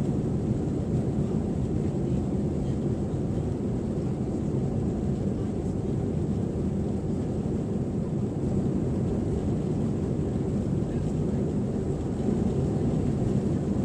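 Steady low rumble inside the cabin of an Airbus A321 with its IAE V2500 engines running, with a faint thin high whine; it gets a little louder near the end.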